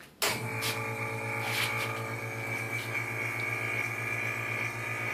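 A machine switched on at its control panel: a click, then a steady electric hum with a low pulsing drone and a high whine that runs on. The sound is from the Angel I ball-lightning generator rig starting up.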